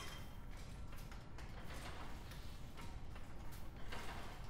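1930s David Crabtree Axminster gripper loom running, its mechanism giving a faint, regular ticking clack roughly once a second.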